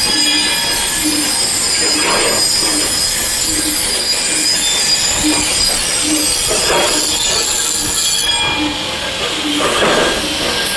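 Factory machinery running loudly: several steady high-pitched whines over a low pulse that repeats a little more than once a second. The highest whine drops away about eight seconds in.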